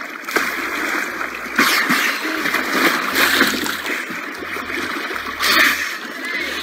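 Water splashing and sloshing as a large animal breaks the surface right beside a kayak, with several louder splashes.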